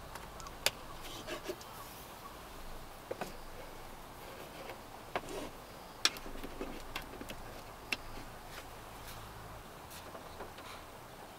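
Scattered raindrops tapping on the car's roof, heard from inside the cabin: irregular sharp ticks about a second apart, over a low hum that stops near the end.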